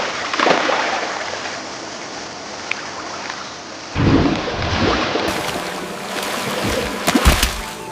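Water splashing and sloshing, then from about four seconds in a run of low, heavy thuds.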